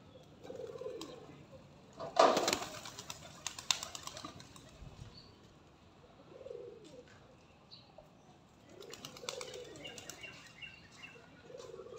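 Feral pigeons' wings clapping and fluttering as birds take off and flutter about: a loud burst about two seconds in, another about nine seconds in, with soft low pigeon coos in between.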